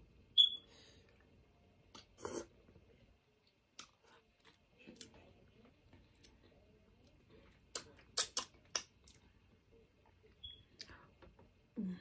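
Close-up eating noises: scattered sharp clicks and wet smacks from chewing and fingers handling food, with a few quick clicks together about eight seconds in and a short low voiced sound near the end.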